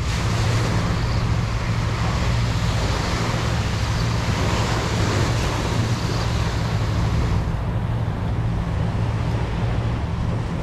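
Wind rumbling on the microphone over the wash of small waves breaking on the beach, a steady noise. The hiss of the surf drops away about seven seconds in, leaving the low wind rumble.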